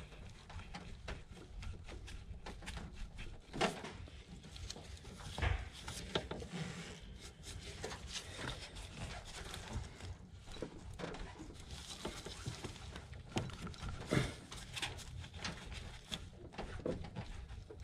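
Gloved hands working AC hose fittings into place, with scattered light clicks, rubbing and knocks of the metal fittings and hoses. Three knocks stand out, about three and a half, five and a half and fourteen seconds in, over a low steady hum.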